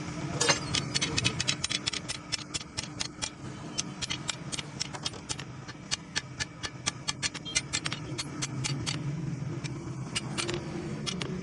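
Hammer blows on steel at an anvil, forging a chisel: rapid ringing strikes, several a second, with a brief lull near the end. A steady low hum runs underneath.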